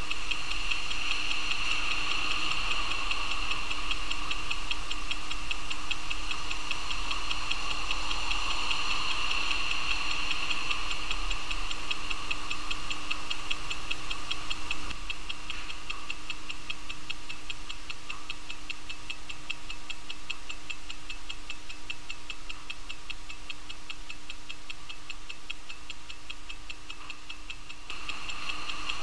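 Rolex Cal.1565 automatic watch movement ticking steadily at its low beat rate of 18,000 vibrations per hour, five even ticks a second from the escapement.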